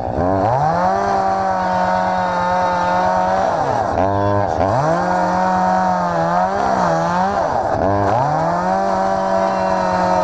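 Ryobi chainsaw running at high speed as it cuts into a fallen tree trunk. It revs up at the start and drops in speed twice, about four and eight seconds in, before picking up again.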